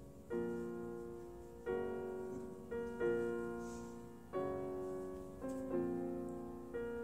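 Slow, soft piano music: chords struck about every one to one and a half seconds, each fading away before the next.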